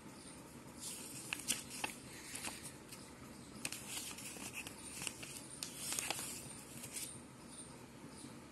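Faint handling noise: light rustles of paper and scattered small clicks from a hand on the pages of an open textbook.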